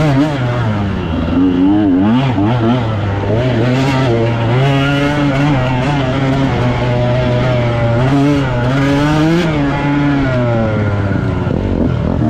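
Off-road dirt bike engine under hard riding, revving up and down again and again as the throttle is opened and closed, with a steadier stretch in the middle and a few short knocks.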